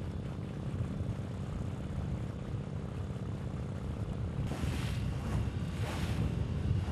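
Motorboat engine running with a steady low drone. Past the middle, two bursts of rushing wind and water noise rise over it.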